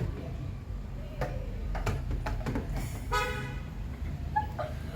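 Hard plastic clicks and knocks as fridge shelf and drawer parts are handled and tried in place, with a short horn-like toot about three seconds in, over a steady low hum.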